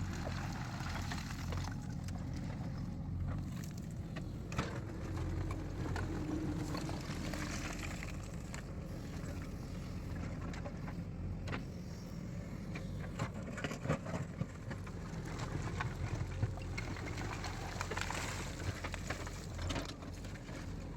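JCB 3DX backhoe loader's diesel engine running steadily under work, with occasional short knocks and clanks from the machine.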